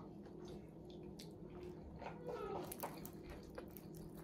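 Quiet room with faint scattered clicks and soft handling sounds of people eating, and a faint falling tone about halfway through.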